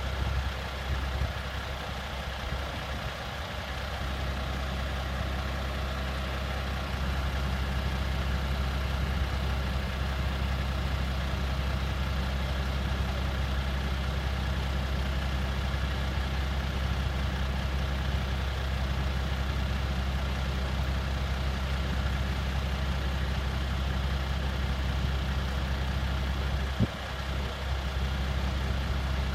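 Heavy diesel engine of a fire engine idling steadily, with a single sharp click near the end.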